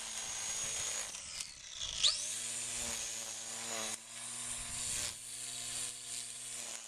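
Black & Decker cordless electric string trimmer running with a steady motor whine. It slows, then spins back up about two seconds in, rising in pitch before it settles, as it cuts out a dandelion.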